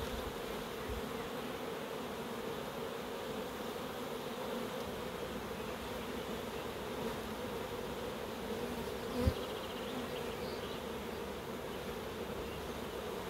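Honeybees from an open, queenless hive buzzing steadily as their frames are lifted out and handled, with one short wooden knock about nine seconds in.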